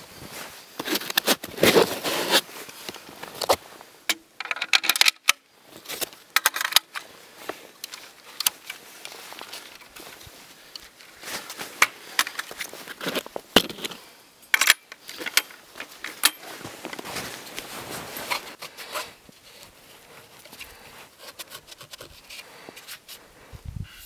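Handling noise from unpacking a rifle from a foam-lined hard case: irregular clicks, knocks and rattles of metal and plastic parts, with short scrapes.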